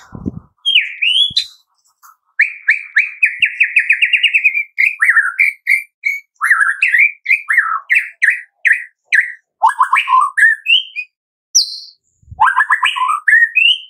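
White-rumped shama singing: a fast run of evenly repeated notes, then a string of varied whistled notes sliding up and down, broken by short pauses about two seconds in and near the end.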